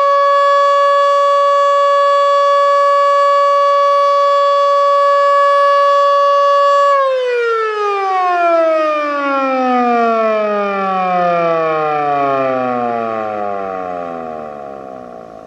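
Federal Signal Model 2 electromechanical siren holding one steady full-pitch tone for about seven seconds, then winding down after being shut off, its pitch falling steadily as it fades.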